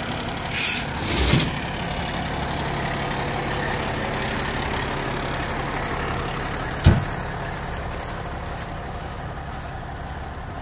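Fire engine's diesel engine running steadily, with two short hisses near the start and a single sharp thump about seven seconds in.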